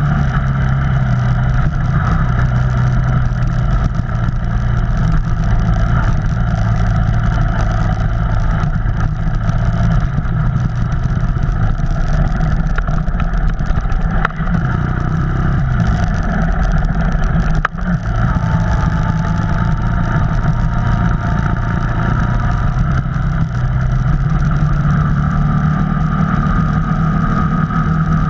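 Off-road vehicle engine running continuously while being driven, its pitch dipping and recovering a little past the middle, with one brief sharp click about two-thirds of the way through.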